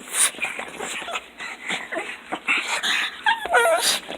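Pugs whimpering and squealing in excited greeting, with a short wavering whine about three seconds in, over scuffling and clicking.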